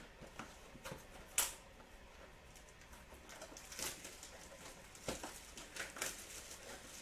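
Trading-card packaging and cards being handled: scattered soft crinkles, rustles and light clicks, with a louder rustle about a second and a half in.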